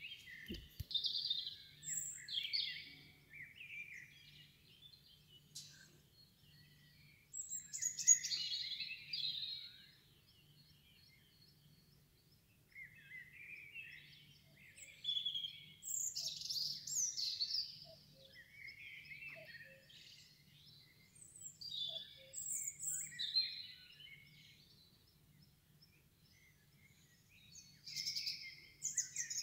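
Birds singing: quick chirping and warbling phrases in bursts of a few seconds, with short pauses between them.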